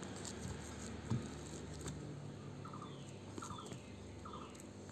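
Hands softly kneading gulab jamun dough in a bowl, faint, with a light knock about a second in. From about halfway, a bird chirps repeatedly in the background with short, quick calls.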